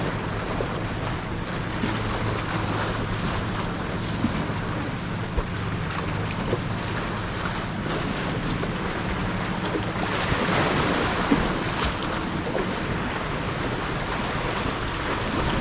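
Sea water washing and splashing, with wind buffeting the microphone. A low steady hum runs under the first half, and a louder wash of water comes about ten seconds in.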